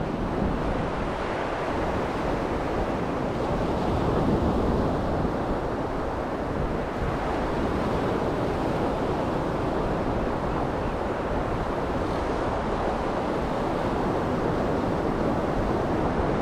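Surf breaking steadily on a sandy beach, with wind buffeting the microphone.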